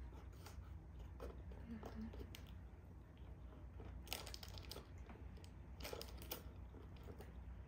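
Faint sipping of soda through a drinking straw from a can, with small mouth and lip clicks that come in two clusters, about four and about six seconds in.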